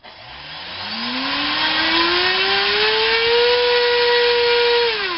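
Racerstar BR2406S 2300kV brushless motor spinning an APC 7x5 electric propeller on a 3S battery: it spools up with a rising whine, holds at full throttle for about a second and a half, then throttles off and winds down near the end. The owner finds the load on this prop way over the motor's specs.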